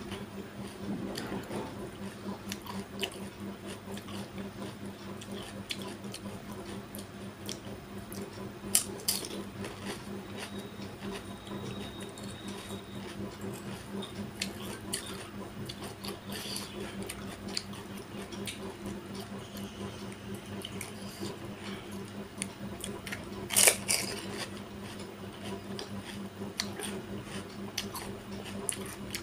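A metal spoon stirring and dripping the spiced water for pani puri in a glass bowl, with scattered small clicks and taps. Two louder sharp cracks stand out, one about a third of the way in and one later on, over a steady low hum.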